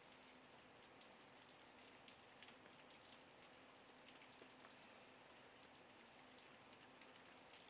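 Faint, even hiss with many small scattered ticks, a light patter, over a low steady hum.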